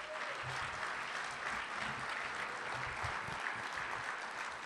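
Audience applauding steadily: many people clapping at once in a dense, even patter.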